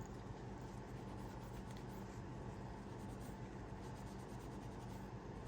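Faint light rubbing and small scratchy ticks from hands working on the phone's rear glass, over a steady low electrical hum.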